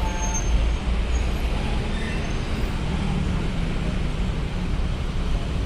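Steady low engine rumble with a faint constant hum, typical of idling diesel engines.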